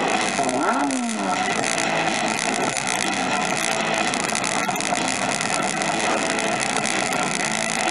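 Steady, dense din of an amusement arcade, with machines and sound effects running together, and a short rising-then-falling tone under a second in.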